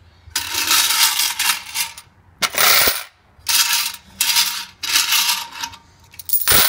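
Quarters pouring and rattling out of a gumball machine's coin compartment into a box, in about six separate bursts with short pauses between.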